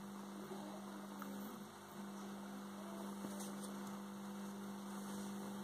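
Steady electrical hum from a running high-voltage resonant transformer circuit, one low, even tone.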